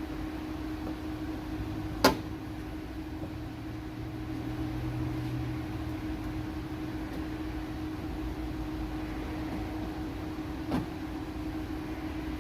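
A steady mechanical hum with one sharp, loud click about two seconds in and a fainter click near the end.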